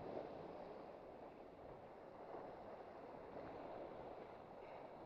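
Sea waves washing and foaming over shore rocks, a soft rushing noise that swells and eases.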